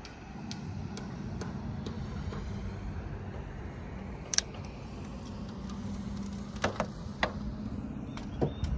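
A steady low motor hum over a low rumble, broken by a few sharp clicks: one loud one about halfway through and three more near the end.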